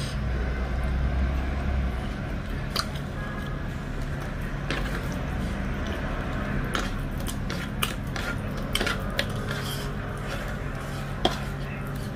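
Eating by hand: fingers squishing dhido and chicken curry, mouth sounds of chewing, and scattered sharp clicks of hand and dish against a steel plate and glass dish, the loudest near the end. A steady low hum runs underneath.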